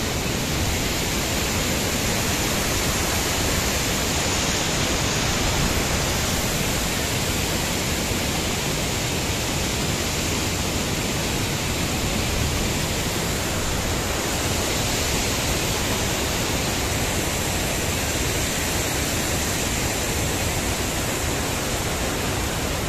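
Large waterfall close by: a steady, even rush of falling water.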